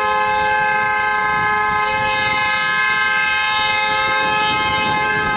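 Car horn held down in one long, unbroken blast, its two notes sounding together as a steady, loud chord.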